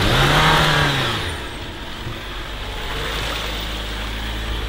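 Jeep Wrangler Rubicon 4xe driving slowly through deep mud. Its revs rise and fall once in the first second and a half, then settle into a steady run.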